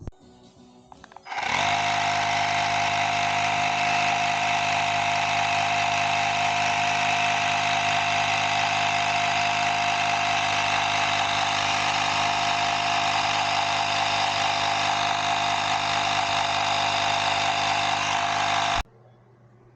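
Electric air compressor running steadily while inflating an electric scooter tire, with a constant pumping drone and a strong steady tone. It starts about a second in and cuts off suddenly near the end.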